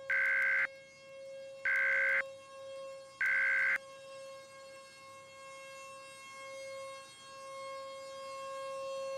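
Three short bursts of EAS SAME digital data tones, about half a second each and evenly spaced over the first four seconds: the End of Message signal that closes the alert. Under them a civil defense siren sounds steadily at one pitch, slowly swelling and fading in loudness.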